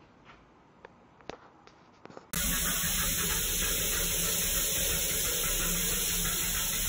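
A few faint ticks. Then, about two seconds in, a shower starts to be heard loudly: water spraying steadily inside a glass shower stall.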